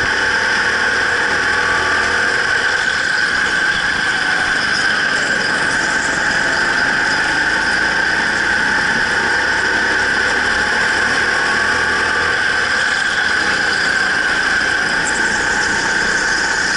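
Go-kart lapping an indoor track at racing speed, with a loud, steady high-pitched squeal over a low running rumble.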